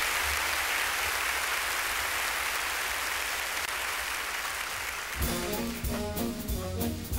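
Audience applauding after a number ends. About five seconds in, a swing big band with brass starts the next tune.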